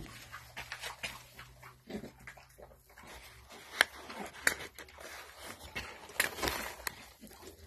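Crumpled newspaper rustling and crackling in irregular short bursts as a beagle puppy sniffs and noses through it, with a sharp click about four seconds in.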